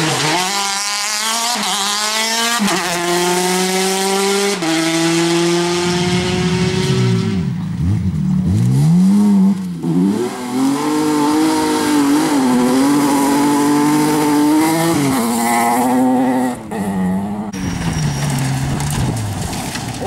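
Rally car engines at full throttle. A Peugeot 208 rally car accelerates hard and upshifts three times, pitch rising between shifts. Then a BMW 3 Series rally car on a gravel corner, its engine rising and falling repeatedly as the throttle is lifted and reapplied, with tyres scrabbling on gravel, and another car starting near the end.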